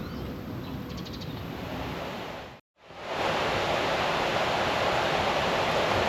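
Steady outdoor rushing noise, like wind or surf, with no distinct events. It breaks off briefly a little over two and a half seconds in and comes back louder.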